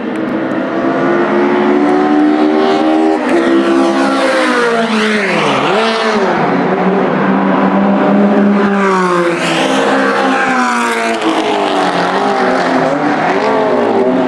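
Several racing cars running flat out past the track, their engine notes overlapping, climbing through the gears and sweeping down in pitch as each one goes by.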